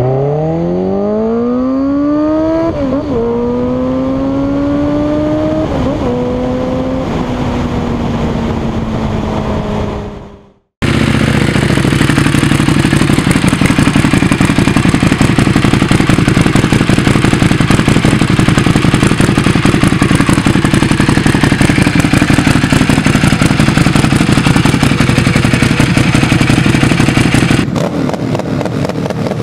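A ridden motorcycle accelerates through the gears: its engine note rises, dips at two upshifts and then levels off. It cuts out sharply at about ten seconds. Then a parked sport bike's engine runs loud and steady for most of the rest, and near the end it changes to a different, quieter engine sound.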